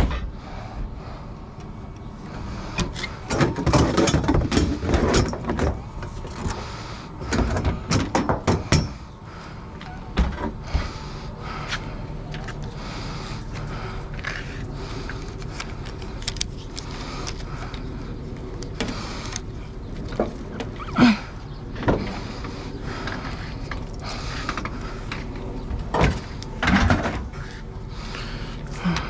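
A vehicle engine running steadily, with bursts of clattering and knocks, heaviest a few seconds in and again around eight seconds in, then a few single knocks later on.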